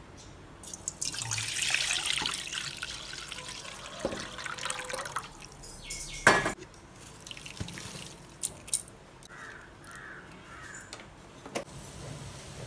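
Water flowing for about four seconds, then a single sharp knock, followed by a few light clicks and clinks.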